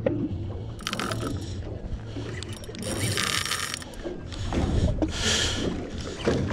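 Shimano Stella spinning reel being cranked under load during a fight with a hooked fish, its gears and line roller giving a mechanical whir with scattered clicks. Two short bursts of hiss come about three and five seconds in, over a steady low rumble.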